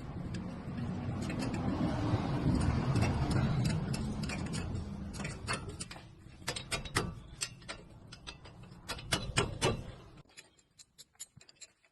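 Mechanical work on a car's brakes: a grinding whir that swells and then fades over about six seconds, followed by a run of irregular sharp metallic clicks that stops about ten seconds in.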